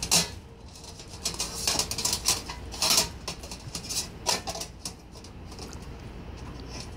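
Thin stainless-steel panels of an EcoQue (Pyromid) folding charcoal grill clinking and scraping as its pyramid-shaped firebox is unfolded by hand. Several sharp metal clicks come in the first half, the loudest right at the start and about three seconds in, and softer handling follows.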